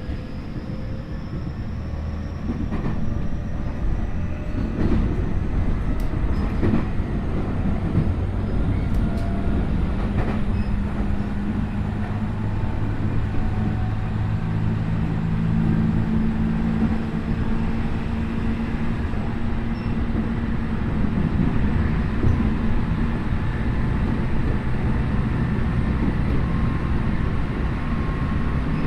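Tokyu 5050 series electric train running, heard inside the car at its end: steady wheel and track rumble with a few rail-joint clicks. Over it sits the faint whine of the Hitachi IGBT VVVF inverter and traction motors, which rises slowly in pitch through the first half as the train gathers speed.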